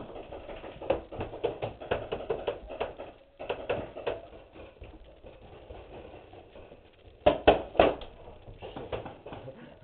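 Paintball markers firing: a fast string of sharp pops over the first three seconds, a short cluster about half a second later, and three loud pops close together about seven and a half seconds in.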